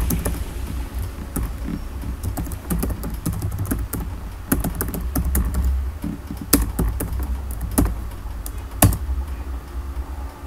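Computer keyboard being typed on: irregular key clicks as a command is entered, with a few sharper, louder keystrokes in the second half, over a steady low hum.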